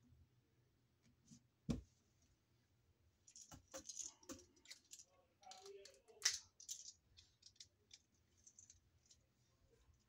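Faint clicks and rattles of hand tools on electrical wire: a single sharp click about two seconds in, then a run of small clicks and rustling from handling the wire, with another sharp click around six seconds.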